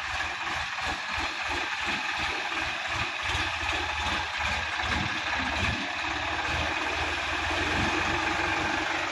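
Sonalika DI-50 RX tractor's diesel engine running with a rough, low chugging while the tractor pulls through mud and water. The chugging grows denser and steadier about halfway through.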